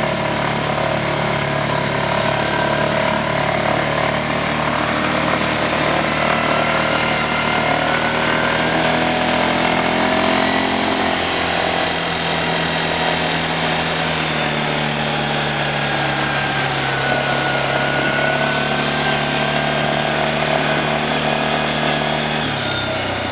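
ATV (quad) engine running steadily under load while the quad wades through muddy floodwater and then mud. Its pitch shifts about halfway through and drops just before the end.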